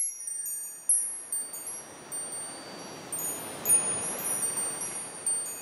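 Wind chimes ringing: a run of high, overlapping strikes that each ring on and fade, over a soft rushing hiss.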